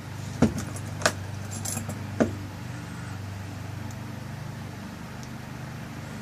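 Small metal clicks and clinks from handling a lock cylinder as its tail piece is fitted and screwed on: three sharp clicks in the first couple of seconds with a few fainter ticks between, then only a steady low hum.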